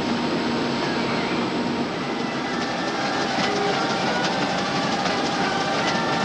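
Machinery running with a dense, steady din and rapid clattering that grows busier about two and a half seconds in, over a steady hum.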